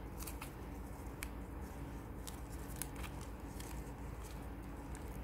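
Ribbon rustling and crinkling in the hands as strands are crossed and pulled tight, giving scattered light clicks over a steady low hum.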